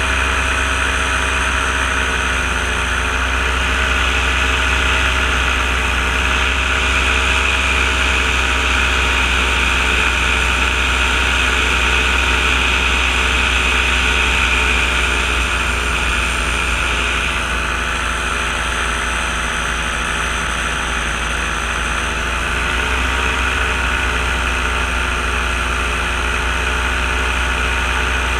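Powered paraglider's engine and propeller running steadily in level flight, a constant drone whose pitch drifts slightly a couple of times.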